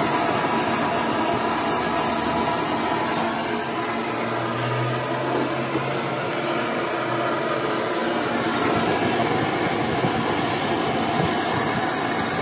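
Steady machine-like noise with no distinct strokes, and a brief low hum about halfway through.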